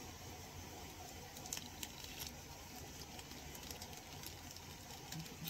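Faint handling sounds of fishing line and terminal tackle being worked by hand: a few light clicks over a low steady room hum.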